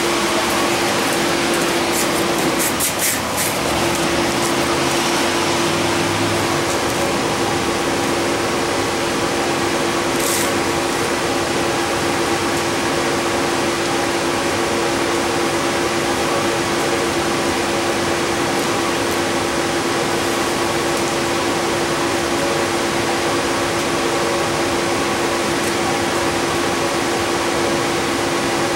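Steady running noise heard inside a city transit bus, from its engine and ventilation, with a constant mid-pitched hum over a hiss. A few light clicks come about two to three seconds in, and a short sharp hiss about ten seconds in.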